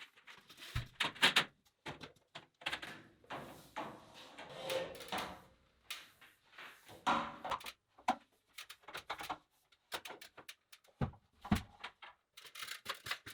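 Irregular knocks, clicks and short scraping sounds of hands-on plumbing work, handling pipe and fittings while feeding the bathtub faucets.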